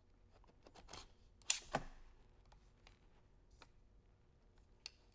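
A few faint clicks and knocks of a Canon DSLR being handled into the camera plate of a three-axis handheld gimbal, the loudest about a second and a half in.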